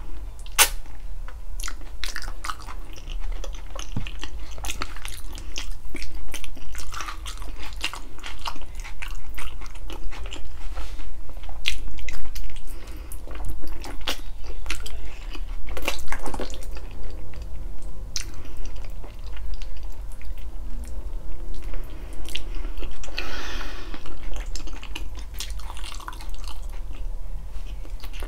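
Close-miked chewing and biting: a person eating balbacua, stewed pork feet, with irregular wet smacks, clicks and some crunching over a steady low hum.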